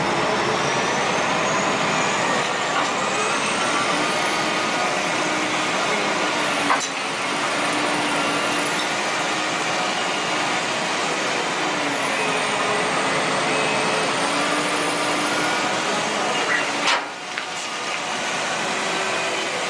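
Heavy earthmoving machinery, a wheel loader and a dump truck, with their diesel engines running in a steady drone. A short click comes about seven seconds in, and a sharper knock comes near the end.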